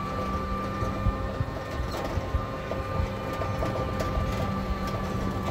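Riding inside a rickshaw on a town street: a steady low hum with a thin, constant high tone from the running vehicle, and light clicks and rattles from its body.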